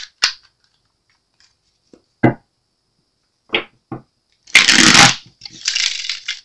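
Deck of tarot cards being shuffled: a few short taps of the deck on the table, then a loud riffle of the two halves a little past halfway, followed by a softer rustle as the cards are pushed back together.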